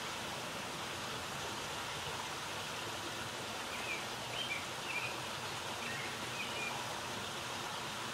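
Steady outdoor background hiss, with a few short bird chirps from about four to seven seconds in.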